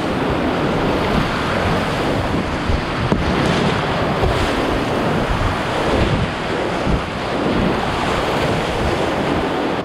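Whitewater rapids rushing loudly and steadily around a kayak running them, with water splashing over the bow and onto the microphone.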